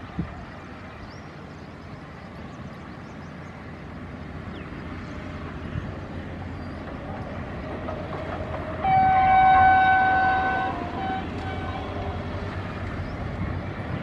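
Pakistan Railways diesel locomotive approaching with a passenger train, its engine rumble growing steadily louder. About nine seconds in it sounds its horn, a chord of several notes held for about two seconds.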